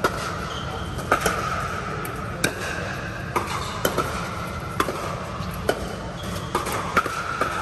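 Pickleball rally: sharp pops of paddles striking the plastic ball, about ten in all at roughly one a second, some in quick pairs, over a steady low rumble.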